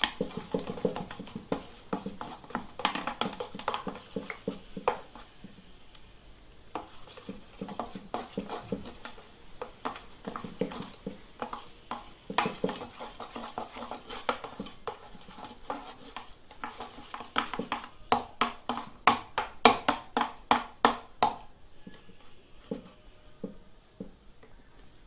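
Clear glue and water colour being stirred in a bowl, the stirring utensil clicking and scraping against the bowl in repeated quick runs, fastest and loudest near the end before dying away.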